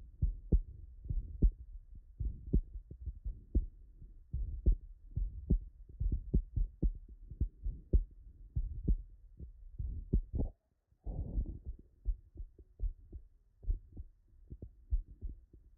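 Heart heard through a stethoscope, with double metallic aortic and mitral valve replacements: sharp, crisp clicks from the mechanical valves repeating in a heartbeat rhythm. A brief rush of noise comes about two-thirds of the way through.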